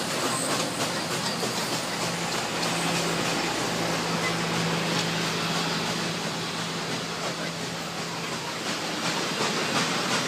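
Passenger cars of a steam excursion train rolling past close by, their wheels running on the rails with a steady rushing noise. A steady low hum sounds from about two seconds in until near the end.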